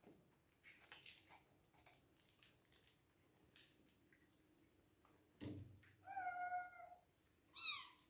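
Hungry Bengal kitten meowing twice: a held meow about six seconds in, then a shorter, higher meow that falls in pitch near the end. Light clicks and rustling come before, and a soft thump just before the first meow.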